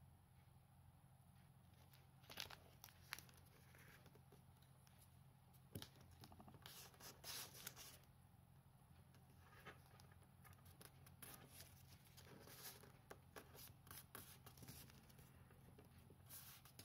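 Faint rustling and creasing of origami paper being folded by hand, with scattered soft clicks as the fingers press the folds flat.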